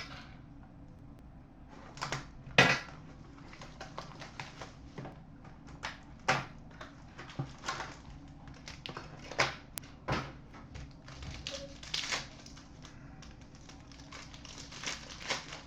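A trading-card box and its foil packs being handled and opened, giving irregular crinkling, rustling and small clicks. A few sharper snaps come about two and a half seconds in, around six seconds, and around ten seconds.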